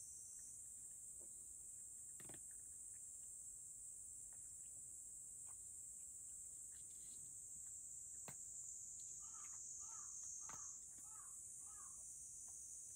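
Faint clicks and crunches of a cat eating from a shallow wooden dish, over a steady high-pitched hiss. A quick run of about five soft short notes comes near the end.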